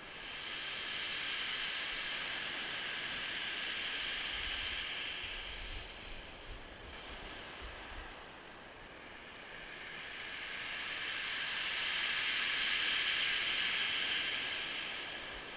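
Surf breaking and washing over a shingle beach: two long swells of hiss, the second, about ten seconds in, the louder.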